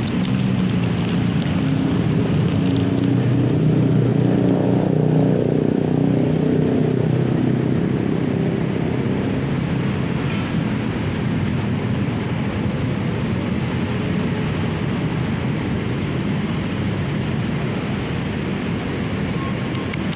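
Road traffic running steadily, with one vehicle's engine growing louder over the first few seconds and fading again.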